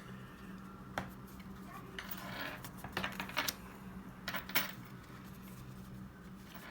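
Pokémon trading cards and their packaging handled on a table: a few sharp clicks and taps and a brief rustle about two seconds in, over a steady low hum.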